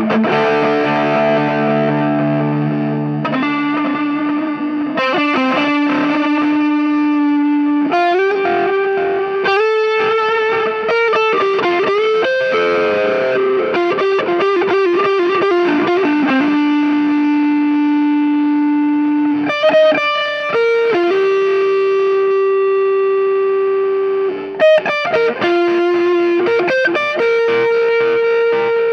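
Electric guitar played through an overdrive pedal into a Soldano SLO 30 mini amp head, with a distorted tone. A chord opens, then mostly long sustained single notes, with a bend about twelve seconds in.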